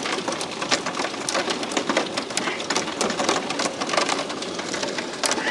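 Heavy hail clattering down: a dense, irregular patter of hailstones striking surfaces over a steady hiss.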